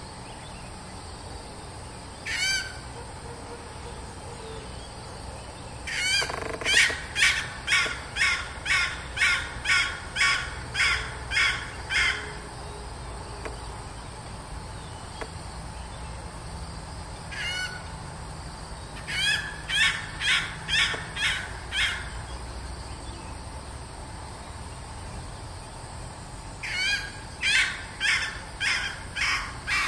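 Female red junglefowl calling in bouts of sharp, high, repeated notes about two a second, with single notes between the bouts. This is the calling of a decoy hen used to draw wild cocks.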